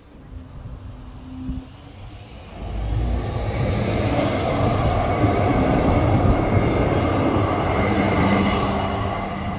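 DÜWAG tram passing close by at rail level: the rumble of its wheels on the rails builds up about two and a half seconds in and stays loud, with a faint high whine over it.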